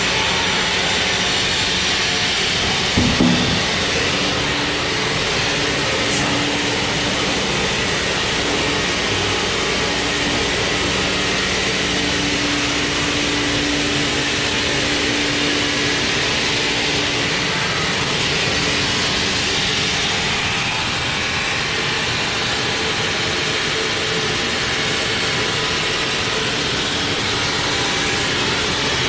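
Sawmill machinery running, a loud and steady noise with a steady hum under it; two sharp knocks about three seconds in.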